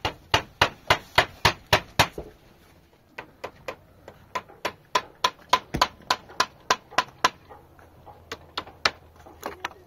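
Rapid, even knocks, about four a second, in three runs: one of about two seconds at the start, a longer one from about three to seven seconds in, and a short one near the end.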